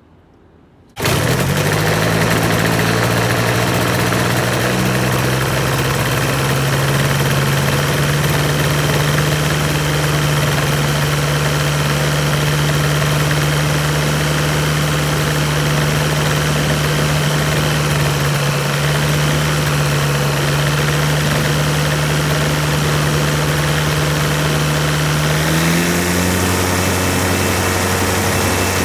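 Rotax 582UL two-stroke twin-cylinder aircraft engine running steadily with its propeller turning, during a ground run after carburettor cleaning. The sound comes in abruptly about a second in, and the engine speed steps up about three seconds before the end.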